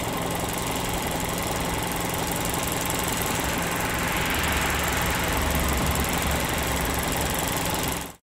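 Swapped-in VAG 1.8T turbocharged four-cylinder engine in a Mazda RX-8 idling steadily on its first start after the swap. The low rumble swells slightly about halfway through, and the sound cuts off suddenly at the end.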